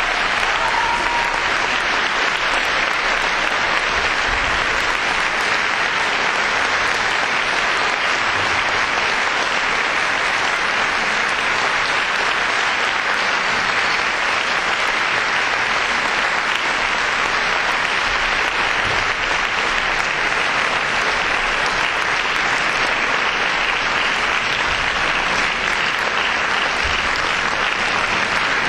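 Concert-hall audience applauding steadily and at length.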